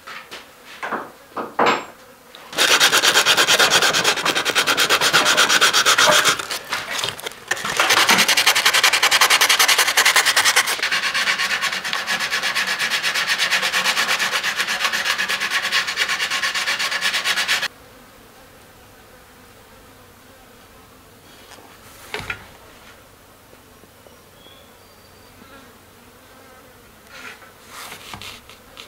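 Hand tool rasping along a hackberry bow limb in quick, continuous strokes, with a short break about six seconds in. It stops abruptly about two-thirds of the way through, leaving only a few faint taps.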